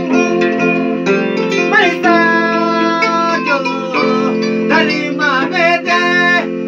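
Kora plucked in quick runs of notes over a steady held keyboard chord, with a man singing a freestyle vocal line that comes in about two seconds in.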